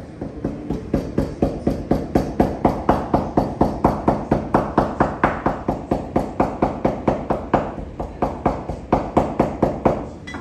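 A fast, even beat of sharp knocks, about four a second, over a tone that swells through the middle and eases near the end; it cuts off abruptly.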